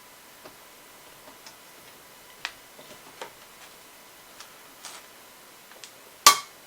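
Torque screwdriver clicking irregularly as it tightens the CPU socket's torque screws, with one much louder, sharp click near the end.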